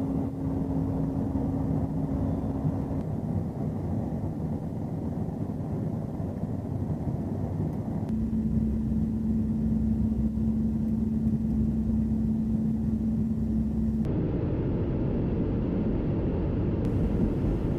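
Steady rumble of a KC-135 Stratotanker in flight, jet engines and airflow heard from inside the aircraft, with a steady hum whose pitch and texture change abruptly a few times.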